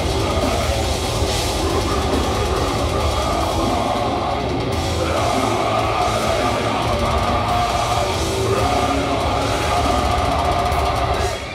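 Deathcore band playing live at full volume through a venue PA: heavy distorted guitars and pounding drums, recorded from within the crowd.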